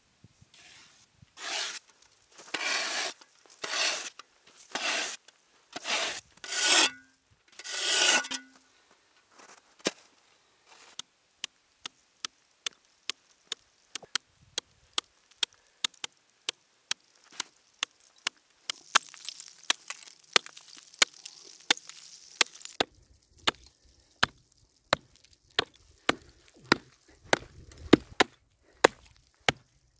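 Snow being scraped off lake ice in about seven shovel strokes, then a hatchet chopping into the ice in a long run of sharp knocks, about two a second, cutting a hole through it.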